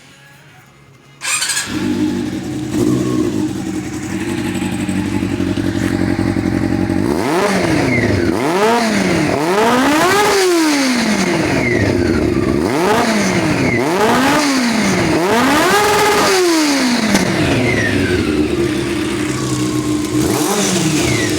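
Motorcycle engine comes in about a second in and runs steadily, then is revved again and again from about seven seconds in, each blip rising and falling in pitch, before settling back to a steady run near the end.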